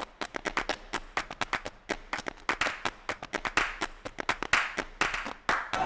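Hand clapping: a quick, uneven run of sharp claps, several a second.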